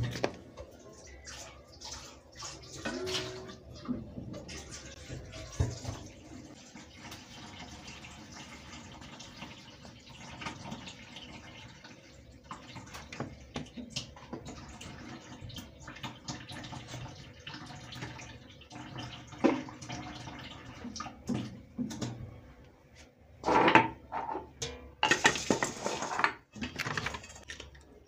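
Hands at a stainless steel kitchen sink: scattered clinks and knocks of jars and containers being handled, with water splashing and running in several louder bursts near the end.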